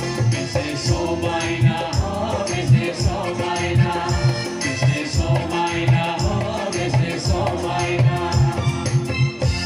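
Bodo gospel song sung by a group of voices with band accompaniment, over a steady beat.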